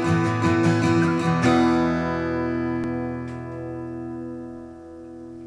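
Background acoustic guitar music: a few more strums, then a final chord about a second and a half in that rings out and slowly fades.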